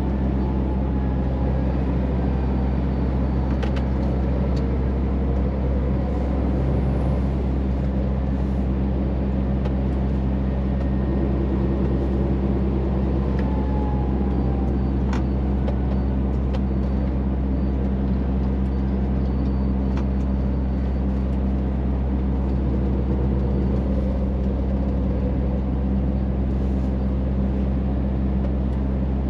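Scania truck's diesel engine running steadily, heard inside the cab while driving loaded, with tyre and road noise over it and a few faint clicks from the cab.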